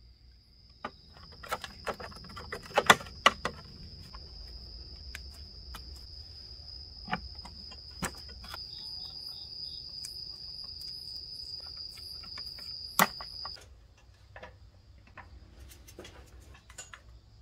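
A thin, steady high-pitched trill runs until it cuts off suddenly about 13 seconds in. Over it come scattered sharp clicks and knocks as the metal plate of motor driver boards and the wiring are handled, thickest in the first few seconds.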